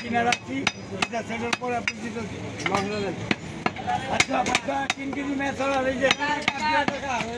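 Large butcher's knife chopping raw beef on a wooden log chopping block: quick, irregular knocks of the blade striking the wood through the meat, about three a second.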